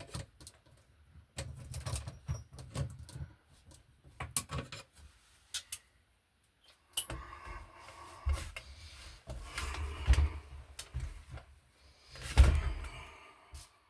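A knockout being opened in a metal electrical box: an irregular series of metal clicks, taps and scrapes, the loudest knock and scrape near the end.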